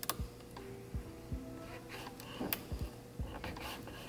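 Scattered light clicks and soft low thumps from fingers pressing and guiding vinyl film onto the plastic steering-wheel trim, over a faint steady hum.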